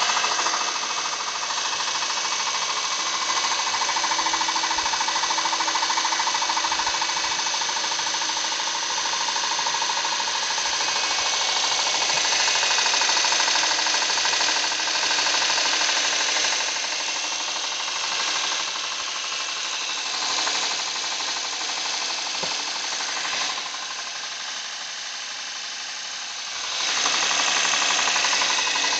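Honda Pilot V6 engine running with a rapid, steady metallic ticking-knock from the valvetrain: the sign of spalled, pitted camshaft lobes. The level drops for a few seconds late on, then comes back.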